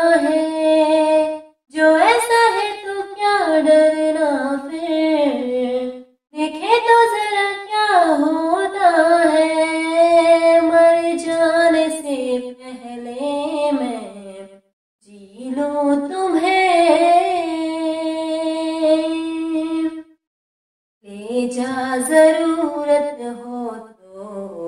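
A woman singing a Hindi film song solo and unaccompanied, in long held phrases broken by short silences.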